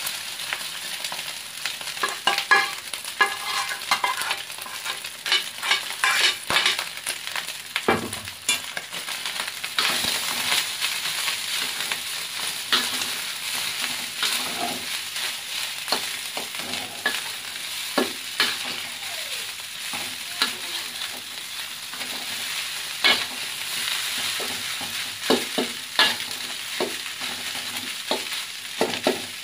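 Metal spatula stirring and scraping rice and scrambled egg around a hot wok, with irregular clinks and scrapes of metal on the pan over a steady sizzle of frying.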